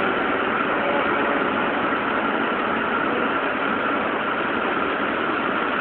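Steady, unchanging mechanical hum and hiss from a Nagano Shinkansen train, with faint steady tones on top.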